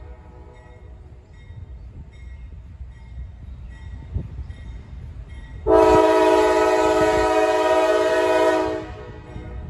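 Norfolk Southern diesel locomotive's multi-note air horn sounding one long, steady chord for about three seconds, starting a little over halfway through, over the low rumble of the approaching locomotive.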